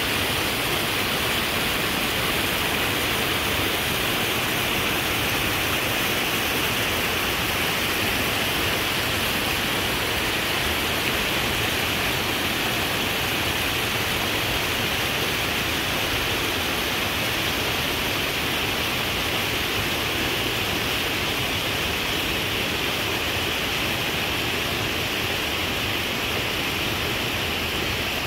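Running water rushing steadily, a constant even hiss with no breaks or changes.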